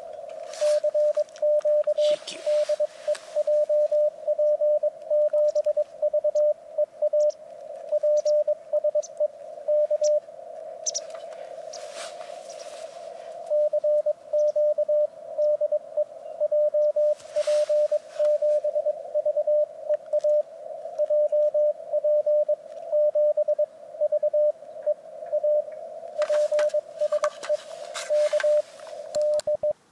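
Morse code (CW) from an Icom IC-705 ham transceiver: a single steady beep keyed on and off in dots and dashes, over band hiss heard through a narrow CW filter. A few brief rushes of broad noise come and go under it.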